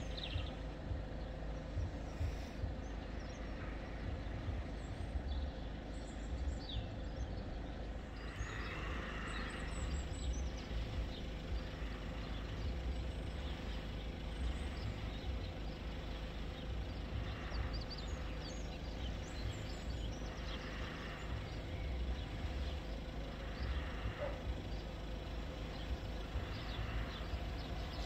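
Steady low rumble and hum of idling road vehicles, with a few faint bird chirps.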